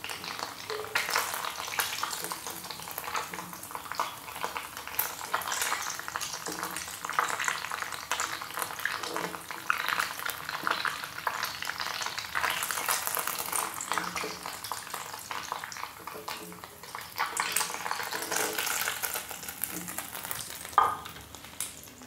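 Paneer balls deep-frying in hot oil in an iron kadhai, a steady crackling sizzle, with the perforated metal skimmer stirring and scraping through the oil as the balls are lifted out. A sharp knock near the end.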